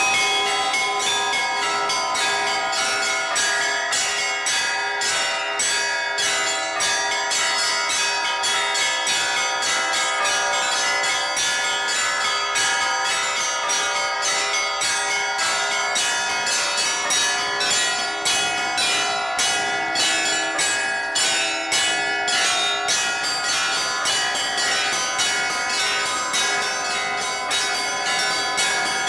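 Orthodox church bells ringing in a continuous peal: several bells of different pitch struck in quick, even succession, their tones ringing on and overlapping.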